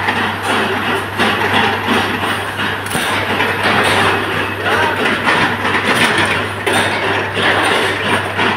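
Industrial workshop noise around a 25 kW induction forging machine running under load: a steady low electrical hum beneath a loud, uneven rattling din.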